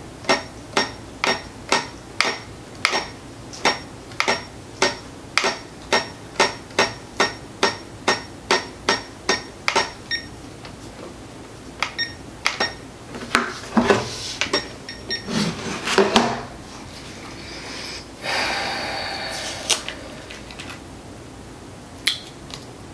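A small plastic push button clicked over and over, about two clicks a second for some ten seconds. Then a few irregular handling clicks and a brief rustle follow as the small plastic unit is picked up and handled.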